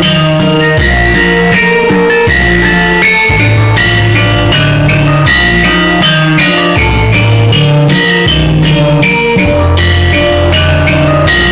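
Dance music played very loud through a high-wattage competition sound system, with long, heavy bass notes that change about every second, a melody on top and a steady drum beat.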